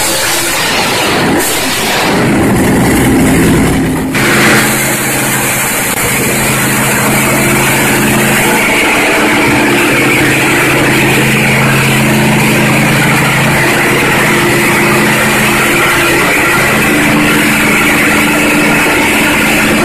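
Racing V8 on an engine dynamometer running loud and steady, held at a constant speed with no change in pitch. For the first four seconds there is a different engine sound that rises, and it gives way abruptly to the steady one.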